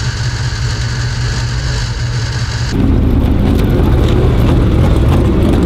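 Dirt late model race car's V8 engine idling with a low, uneven note. About three seconds in it becomes louder and fuller as the car rolls away slowly.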